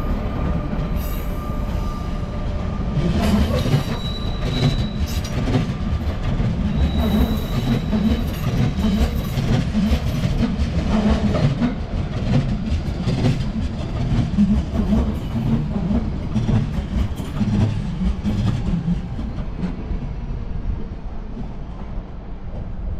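A train running along the station tracks, its wheels rumbling and clattering over rail joints, with a few brief high wheel squeals in the first half. The sound fades in the last few seconds.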